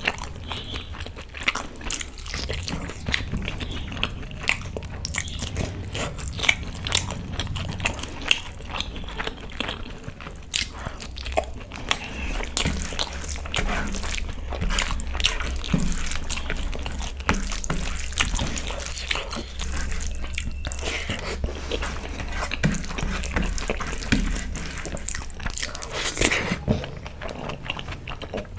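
Close-miked eating of chicken egg fried rice and chicken manchurian: chewing big mouthfuls with a steady stream of wet mouth clicks and smacks. A steady low hum runs underneath.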